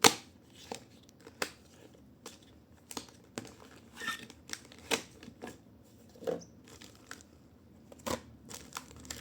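Product packaging being opened and handled: scattered crinkling rustles with sharp clicks and knocks, the loudest right at the start.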